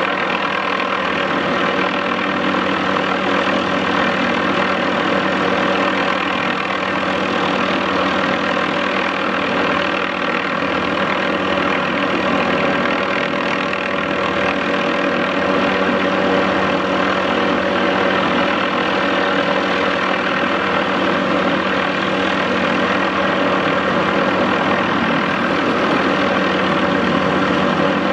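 MD530F helicopter running steadily: its turbine engine and main rotor make an even, continuous sound with many held tones and no change in pitch or level.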